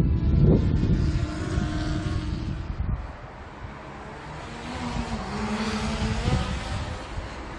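DJI Mavic Air 2 quadcopter flying fast in sport mode, its propellers whining with a pitch that shifts up and down as it moves about, loudest near the start and again a little past halfway. A low rumble of wind on the microphone runs under the first few seconds.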